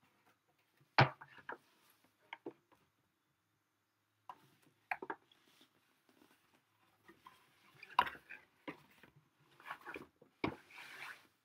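Cardboard boxes being handled and set down: a sharp knock about a second in, then several lighter knocks and scrapes of cardboard against cardboard and the table, with a short rustling slide near the end.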